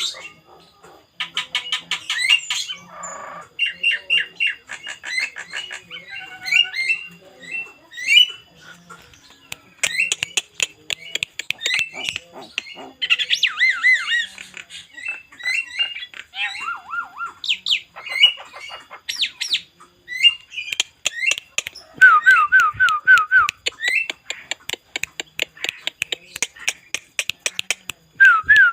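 Two mynas, a male Javan myna and a female jalak Nias, calling and singing together: loud whistled notes, harsh squawks and clicking chatter, with quick runs of about five short repeated notes near the end.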